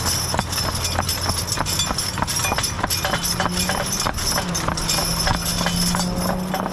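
A team of two heavy Belgian draft horses walking on asphalt road, their hooves clip-clopping in a steady, overlapping rhythm. A low, steady drone runs underneath in the second half.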